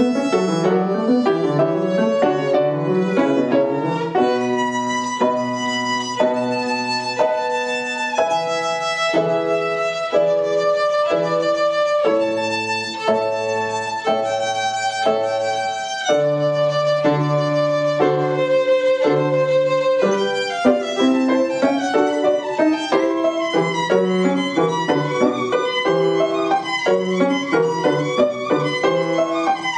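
Violin and grand piano playing classical music together, the violin carrying the melody with long held notes and quicker passages over the piano accompaniment.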